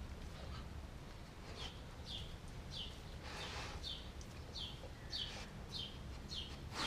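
A bird calling repeatedly: a short falling chirp about twice a second, starting about a second and a half in, over a low background rumble. A dog snuffles at the ground once, about three seconds in.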